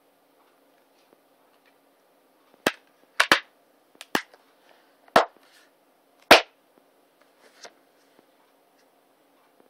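Sharp clicks and snaps of a plastic DVD case being closed and handled, about six in all, the last the loudest.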